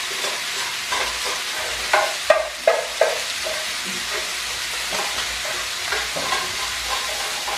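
Squid, green chilies and shallots sizzling steadily as they stir-fry in an aluminium wok, with a few short knocks about two to three seconds in.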